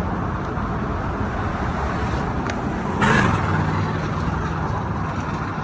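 Steady noise of a road vehicle driving, engine and tyre rumble, swelling briefly about three seconds in.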